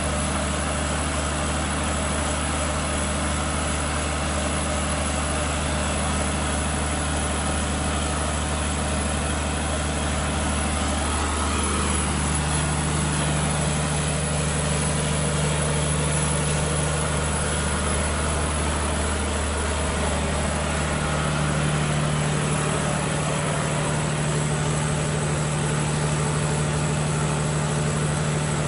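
Volvo Penta diesel generator set running steadily with a constant engine drone, dipping slightly in pitch twice, about a third and two-thirds of the way through.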